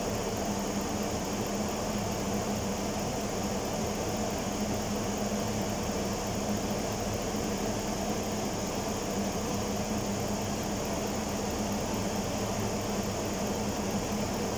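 Steady idle hum of a 2002 GMC Yukon's V8 engine, left running to warm up.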